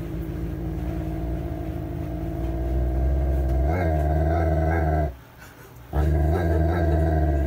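A dog growling in two long, low, steady growls, the first lasting about five seconds, then a brief pause and a second growl.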